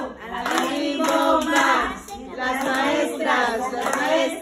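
A group of children's and women's voices singing together, with hands clapping along.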